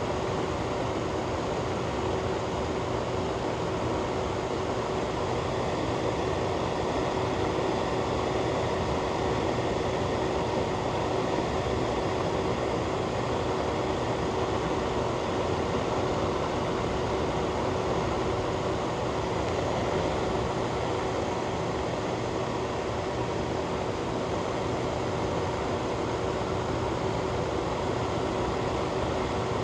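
Ventilation fan running steadily: an even rush of air with a constant hum beneath it.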